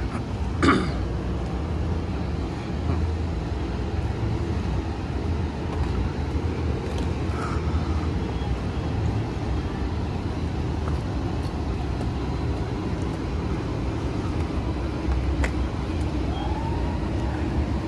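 Steady road traffic noise, a continuous low rumble, with a single sharp knock about a second in.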